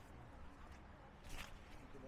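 Quiet wet-street ambience with a low rumble, and a single soft scuffing footstep on wet pavement about a second and a half in.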